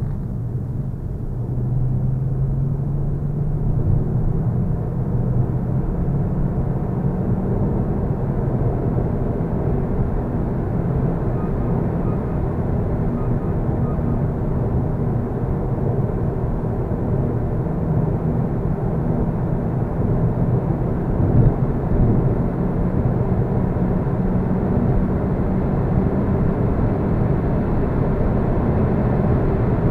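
Inside a car's cabin while driving at a steady road speed: a continuous low engine drone mixed with tyre and road noise. The engine's pitch edges up a little a few seconds in, then holds.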